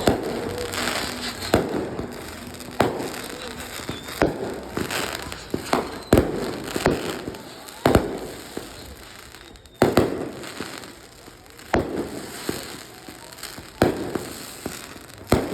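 Aerial fireworks going off: about a dozen sharp bangs, one every second or so, with a hiss between them.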